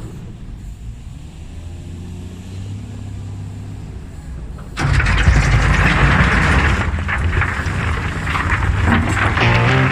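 Diesel engine of a Hitachi ZW220 wheel loader running low and steady. About five seconds in, a sudden much louder rattling rush sets in over the working engine.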